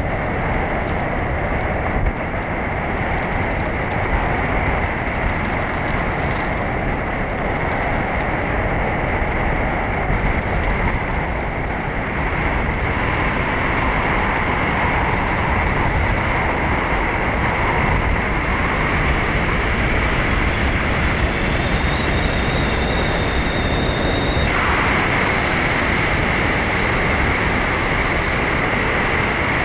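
Steady rushing road and wind noise from a moving car: tyres on the road and air rushing past. The hiss grows brighter near the end.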